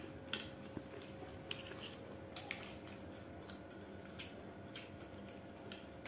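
Quiet eating sounds: scattered small clicks and smacks of chewing and of fingers and a spoon on metal plates, over a faint steady hum.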